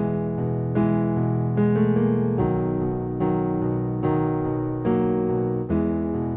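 Background piano music, slow chords struck about once a second.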